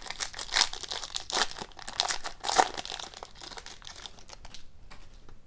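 Foil trading-card pack wrapper crinkling and tearing as it is opened by hand. The crackling is busiest for about the first three seconds and fainter after that.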